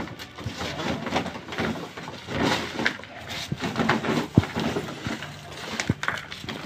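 Potting soil being poured and tipped into a plastic pot around a plant's roots: an irregular rustling, pattering noise, with two sharp knocks in the second half.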